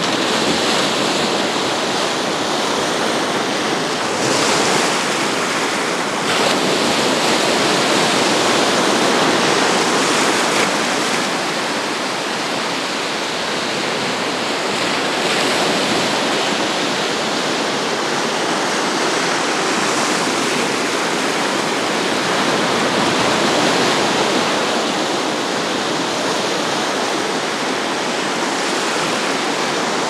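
Black Sea surf breaking and washing over the sandy shallows: a steady rushing wash that swells and eases gently as each wave comes in.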